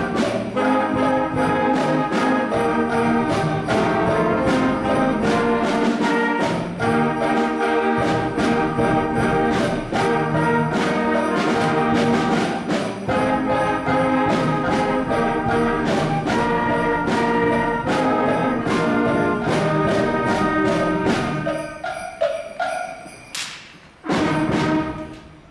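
School concert band playing with jingle bells ringing along. The music dies away a few seconds before the end, with one sharp hit just before it stops.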